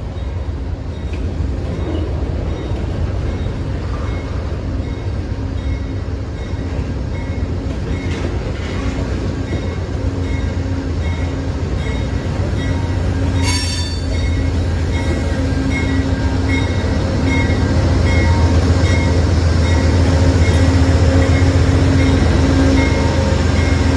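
Freight cars rolling past with steady wheel and rail rumble, joined by an Amtrak GE P42DC diesel locomotive pulling in alongside, its engine rumble growing louder in the last few seconds. A repeating ringing tone pulses through much of it, and a brief high wheel squeal sounds about halfway through.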